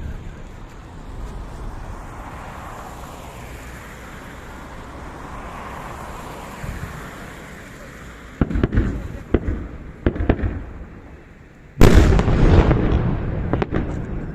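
Fireworks display: a steady rushing hiss, then a run of sharp bangs about eight seconds in and a single loudest burst near the end, its rumble and crackle trailing away.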